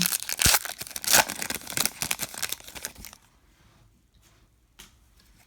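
Trading card pack wrapper being torn open and crinkled, a dense crackling for about three seconds, then quiet apart from a single short tap near the end.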